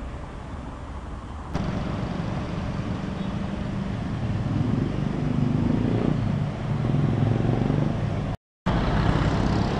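Road traffic running past close by: the engines and tyre noise of cars, motorcycles and a bus, a steady hum that grows louder after about a second and a half and cuts out for a moment near the end.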